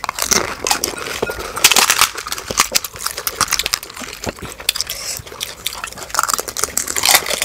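Close-miked eating of pani puri: crisp puri shells cracking and crunching in the mouth, mixed with wet slurping of the spiced water, in a fast, dense run of crackles that is busiest about two seconds in and again near the end. The footage is sped up to double speed.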